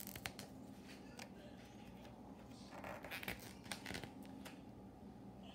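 Paper pages of a hardcover picture book being handled: soft rustling and light ticks as a hand rubs a page and lifts it to turn it.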